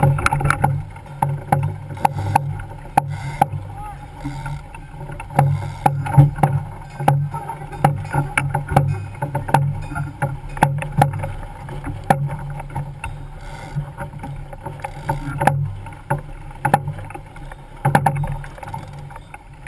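A racing sailboat under way, heeled in choppy water: a steady, surging rush of water along the hull, with frequent sharp knocks and clatters.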